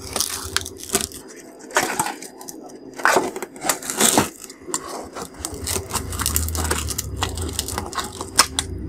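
One layer of thin metal strip being peeled and unwound off a wound transformer core, crackling and scraping as it comes away from the layers beneath, with irregular sharp cracks and clicks.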